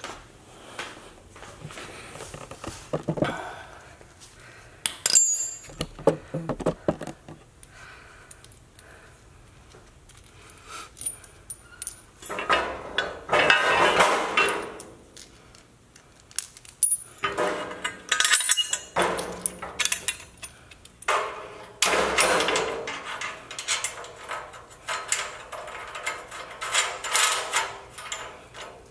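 Bolts and washers being handled and fitted to a cargo rack's frame by hand: scattered metal clinks and knocks, with stretches of busier rattling.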